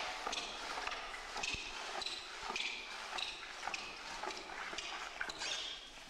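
Footsteps in rubber swim fins slapping on a hard floor, roughly two steps a second, with a few short squeaks among them.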